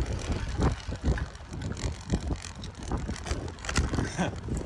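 Bicycle riding over a bumpy dirt path, its frame rattling and clicking over the ruts, with wind rushing over the microphone.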